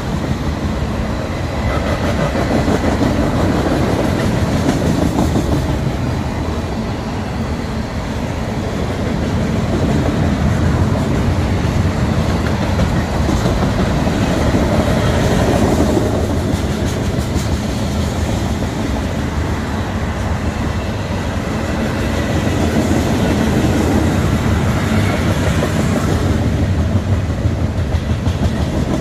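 Freight cars of a manifest train (tank cars, covered hoppers and lumber flatcars) rolling past: a steady rumble and clatter of steel wheels on the rails that swells and eases slightly as cars go by.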